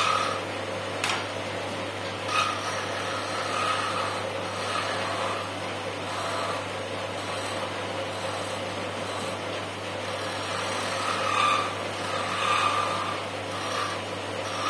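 Wood lathe running with a steady motor hum while a hand-held turning tool cuts a small spinning wooden spindle, the scraping cut swelling in several short passes. A single sharp click about a second in.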